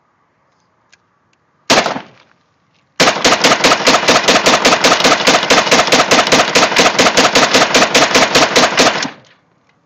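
Semi-automatic AK-47 rifle firing: a single shot, then just over a second later a fast, even string of about five shots a second for some six seconds that empties a full 30-round magazine.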